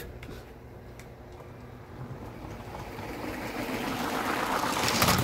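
Motorized LEGO train running along plastic LEGO track, its motor and wheels whirring and growing steadily louder as it approaches the crossing.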